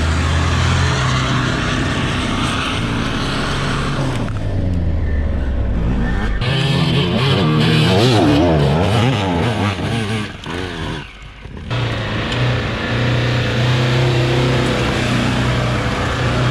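4WD vehicle engines running under load off-road. About six seconds in, a KTM dirt bike's engine revs up and down quickly as it passes. For the last few seconds a pickup's engine pulls steadily as it climbs a steep grassy slope.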